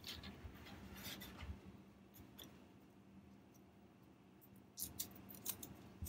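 Faint crinkling and crackling of thin plastic protective film peeled off acrylic parts as it is handled and gathered up, with a few sharper crackles about five seconds in.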